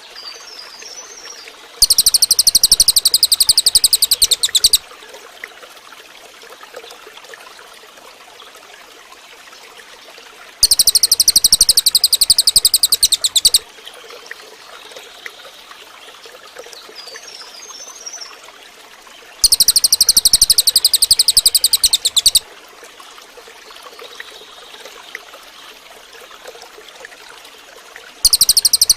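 Cililin bird singing: a loud, very rapid high-pitched trill about three seconds long, repeated four times at even intervals of about nine seconds. A few faint, softer chirps come between the trills, over a steady trickle of running water.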